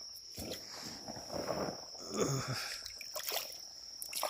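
Soft splashing and trickling of shallow creek water being disturbed, over an insect's steady high trill.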